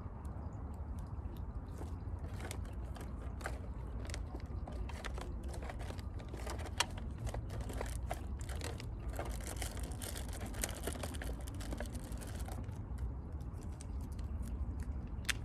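Irregular small clicks, taps and scrapes of hand tools and small parts being handled while making a meteorite accessory, over a steady low rumble. The clicks are densest in the middle and thin out near the end.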